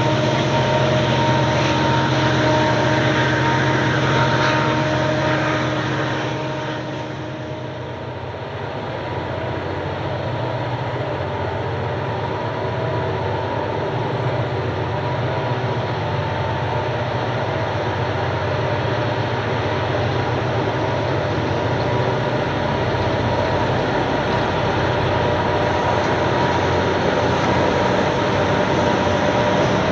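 Diesel locomotives hauling a loaded grain train, led by a streamlined Clyde CL-class unit, approaching: a steady engine drone that grows louder, its low rumble strengthening over the last several seconds. Before this, a higher whining hum dips away about seven seconds in.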